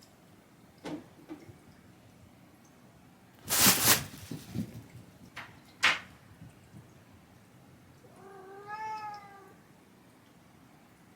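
A loud clatter a few seconds in, with a couple of lighter knocks around it, then a domestic cat meows once, a drawn-out call that rises and falls in pitch.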